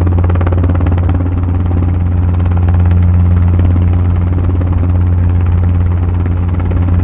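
Helicopter engine and rotor heard through a camera mounted on the aircraft during its landing approach: a loud, steady deep hum with a buzz that holds even throughout.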